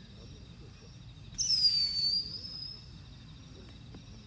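A single high, thin whistled call about one and a half seconds in, sliding down in pitch over under a second. It sits over a faint, steady high insect trill.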